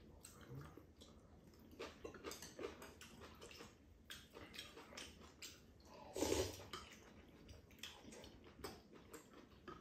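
Quiet eating sounds at a table: chopsticks and spoons tapping ceramic bowls, chewing, and soup being sipped from a spoon, as scattered small clicks and wet noises. A louder noise lasting about half a second comes about six seconds in.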